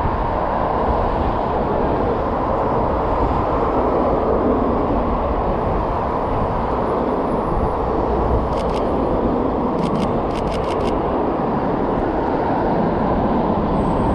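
Steady traffic noise from a busy multi-lane city street. Between about eight and eleven seconds in come a few quick runs of sharp camera shutter clicks from a Sony A7 III.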